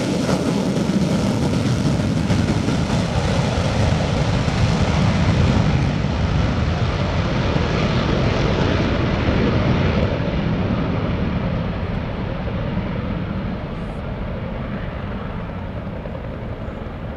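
Blue Angels F/A-18 Hornet jet taking off and pulling into a steep climb: a loud jet-engine roar that peaks around six to ten seconds in, then fades and grows duller as the jet climbs away.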